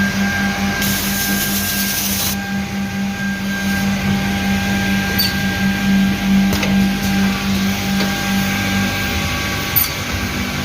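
PVC edge banding machine running with a steady motor hum and a few higher steady tones; about a second in a hiss lasts for about a second and a half, and a few sharp clicks follow later.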